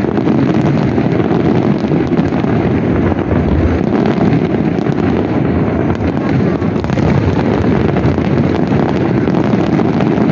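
Large aerial fireworks display: a dense, continuous barrage of shell bursts and crackle that blends into a steady, loud rumble without pauses.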